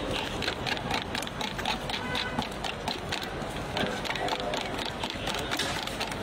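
A spoon stirring quickly in a plastic jug of aloe vera juice, clicking and scraping against the sides several times a second in an even rhythm.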